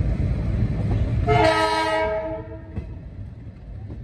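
A train horn sounds one blast of about a second over the rumble of a passenger train running along. After the horn the rumble is quieter, with light clicks from the wheels over the track, heard from the open door of a coach.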